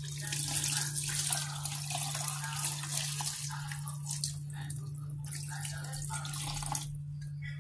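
Kitchen tap water running into a stainless steel sink and splashing in a plastic bowl as produce is rinsed by hand. The flow comes in spells and stops shortly before the end.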